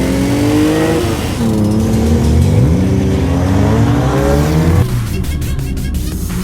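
Renault Clio 3 RS's naturally aspirated four-cylinder engine, breathing through an aftermarket Devil silencer and resonator-delete intertube, accelerating hard. Its pitch climbs, drops at an upshift about a second in, then climbs again. Near the five-second mark the engine note falls away into a quick series of sharp clicks.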